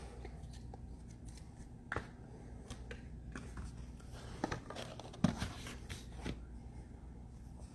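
Faint handling noises over a low steady hum: a few light clicks and taps, spread out, as trading cards and their packaging are moved about on a table.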